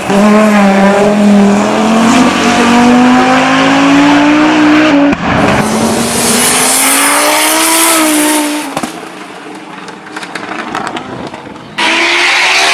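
Audi Quattro S1 Pikes Peak replica's turbocharged 2.3-litre five-cylinder engine under hard acceleration, its note rising steadily in pitch. There is a short break about five seconds in before it climbs again. About nine seconds in it drops to a much quieter, crackly sound, and loud sound returns abruptly near the end.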